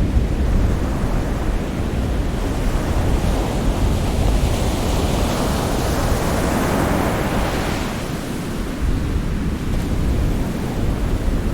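Ocean waves: a steady low rumble of surf, with one wave building and washing in to a peak about six to seven seconds in, then falling away.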